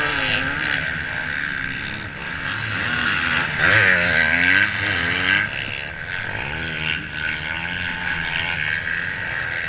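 Motocross bike engine heard up close from on board, revving up and easing off several times as it is ridden round a dirt track, loudest about four seconds in. Wind noise rushes over the microphone throughout.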